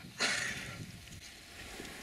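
African elephant tearing up grass with its trunk: one short rustling rip about a fifth of a second in, fading within half a second.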